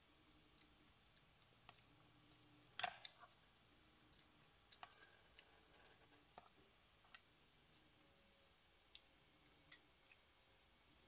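Metal spoon and fork clinking and scraping against a bowl while tossing a salad: scattered light clicks, the loudest cluster about three seconds in.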